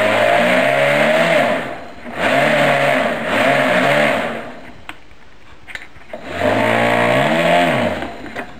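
Electric motor and propeller of a propeller-driven LGB toy train spinning up and winding down three times, with short pauses between. Each run is a whirring whine with a rush of air that rises and then falls in pitch.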